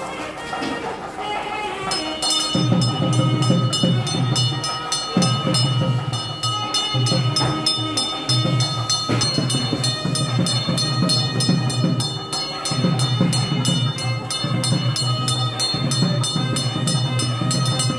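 Temple bell ringing rapidly and evenly, about four strokes a second, starting about two seconds in. Under it plays traditional temple music with low drumming.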